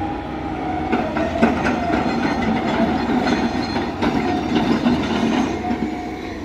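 Construction-site machinery, piling drill rigs and excavators, running as a steady loud din with a wavering whine and irregular metallic clanks.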